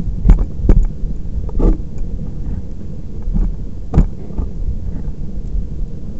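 Rocket stove / Dakota fire pit burning hard with a steady low roar as its draft pulls air through the fire, broken by a few sharp crackles, the loudest about four seconds in.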